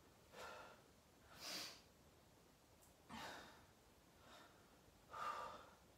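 A man breathing audibly while holding a side plank: about five faint, short breaths, roughly one a second.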